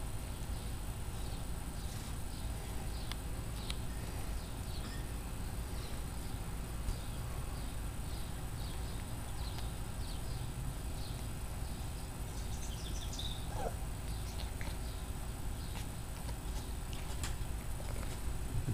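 Domestic cat chewing a slice of white bread: faint, scattered small ticks over a steady low background noise.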